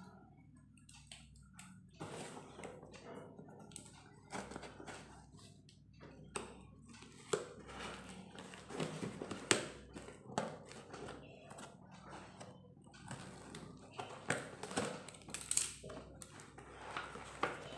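Cardboard shipping parcel being handled while scissors pick at and cut its packing tape: irregular rustles, scrapes and small clicks.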